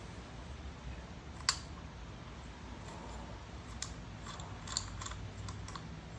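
Wind rumbling on the microphone, with a scatter of sharp little clicks and taps of small metal carburetor parts being handled, the loudest about a second and a half in and a quicker cluster near the end.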